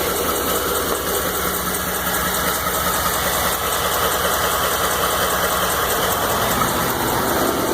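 2012 Ford F-150's 5.0 L V8 engine idling steadily with a repetitive knocking and ticking, the noise the owner calls an engine knock.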